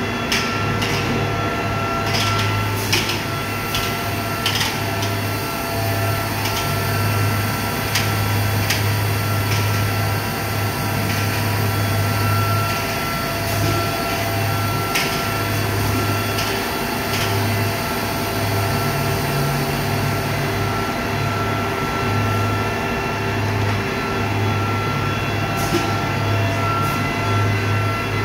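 Plastics strand pelletizing line running: a steady low hum with several constant whining tones above it, and scattered sharp clicks and knocks. The low hum breaks into a pulsing on-and-off about halfway through.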